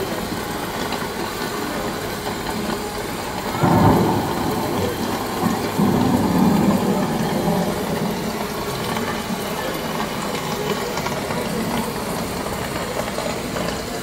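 Sound effect of a miniature-town rainstorm show, heard as a steady hiss of rain. A sudden loud burst comes about four seconds in, and a second, longer swell follows a couple of seconds later.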